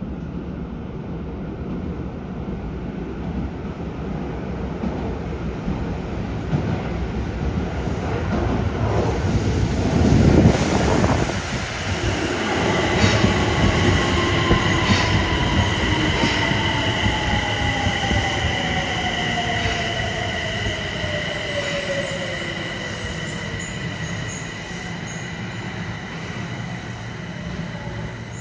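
Yokohama Municipal Subway Blue Line train coming out of the tunnel and pulling into the station. The rumble swells to its loudest about ten seconds in as the front reaches the platform. Then a steady high wheel squeal sets in, and a whine falls steadily in pitch as the train slows, with a few clicks of wheels over rail joints.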